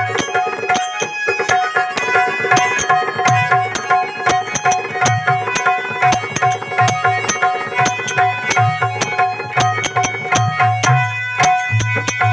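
Instrumental passage of a devotional bhajan: a harmonium plays a melody over a held drone note, with a hand drum keeping a steady beat and quick, bright clicks of small percussion.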